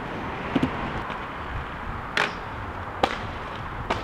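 Wind rushing over the microphone, with a few sharp clacks of inline skates on hard ground.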